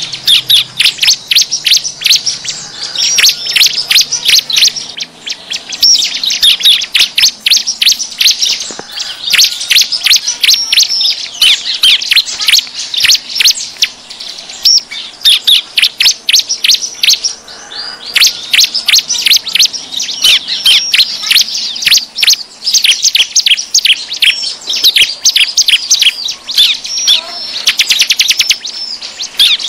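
Bar-winged prinia (ciblek) calling busily: nonstop runs of sharp, high chirps with a few short breaks and a faster trill near the end. This is the noisy 'ribut' style of ciblek call used as a lure to draw in wild ciblek.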